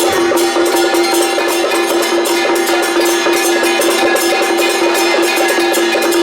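Taiwanese temple-procession percussion playing fast, dense beats without a break. A steady ringing pitch sits under the strokes.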